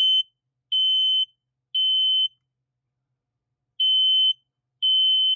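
Kidde P9050 smoke alarm sounding its test alarm: a loud, high-pitched beep in the temporal-three pattern. Three half-second beeps, a pause of about a second and a half, then two more beeps before it stops.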